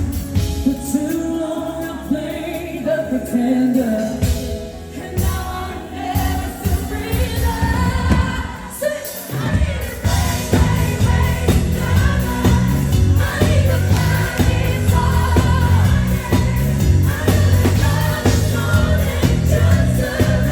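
A woman singing a pop song live with a band. The accompaniment is sparse at first, then the full band comes in with a steady bass beat about nine seconds in.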